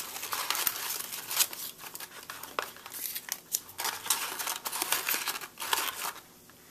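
White paper crinkling and rustling in quick crackles as torn paper scraps are pressed and stuffed into a folded origami water bomb. It falls quiet shortly before the end.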